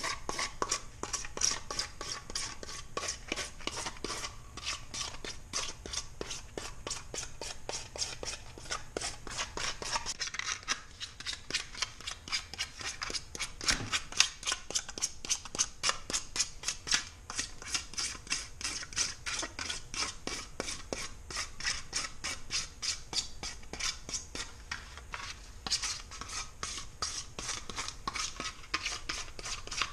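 Hand rasp scraping a white deer ear liner in quick, even back-and-forth strokes, shaping the liner to fit the ear.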